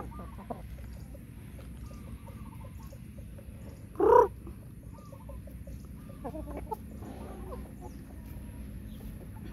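Roosters and young chickens of a foraging flock clucking softly with short, scattered calls, and one loud short call about four seconds in.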